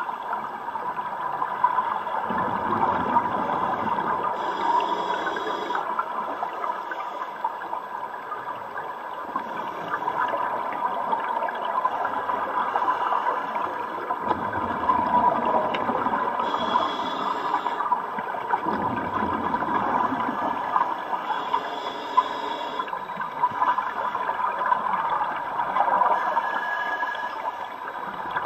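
Underwater bubbling and gurgling of a scuba diver's exhaled air, swelling and easing, with a short hiss several times.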